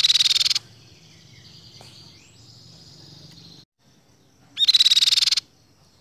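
Crescent-chested babbler (tepus pipi-perak) giving a loud, fast trill twice, each under a second and about four and a half seconds apart, with fainter high whistled notes between.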